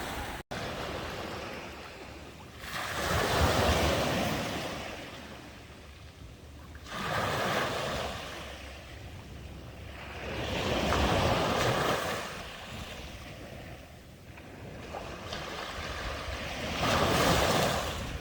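Sea waves breaking and washing up a beach, swelling and fading in four surges a few seconds apart. The sound cuts out for an instant about half a second in.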